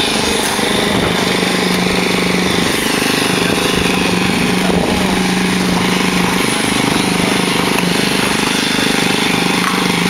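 Motor of a concrete needle (poker) vibrator running steadily while its shaft is worked through fresh concrete in a slab pour, with a low hum that briefly drops and comes back a few times.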